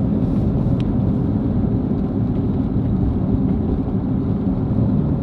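Corvette cruising on a snow-covered road: a steady low rumble of engine and tyre noise, heard inside the cabin.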